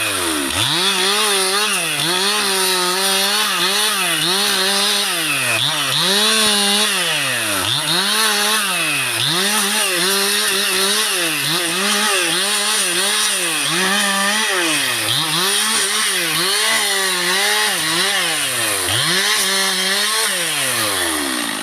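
Two-stroke chainsaw engine held at high revs, its pitch dropping sharply and climbing back again over and over, about every second and a half.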